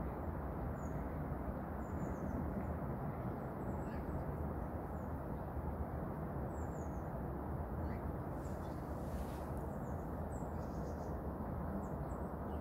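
Small songbirds giving short, high chirps here and there over a steady low rumble of outdoor background noise.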